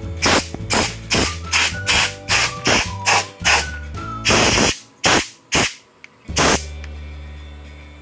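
Background music with a steady beat and bass notes. The beat stops about six and a half seconds in, leaving a held sound that fades away.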